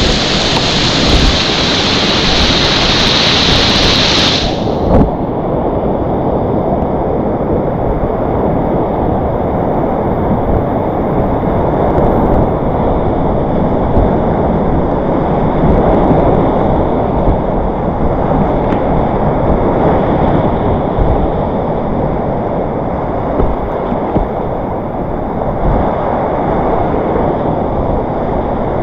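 Whitewater rapids rushing loudly and steadily, heard close up from a kayak on a class 4 creek. About five seconds in the sound turns duller, losing its hiss, and there are a few brief knocks.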